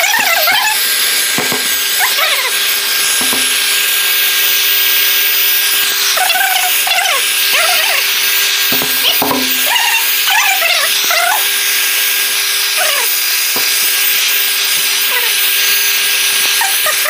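Electric air pump running steadily while inflating a vinyl air sofa bed: a loud, even rushing hiss over a constant hum.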